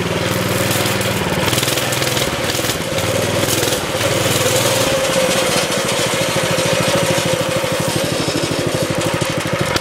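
Baja Warrior mini bike's 196cc single-cylinder four-stroke engine running steadily at low throttle.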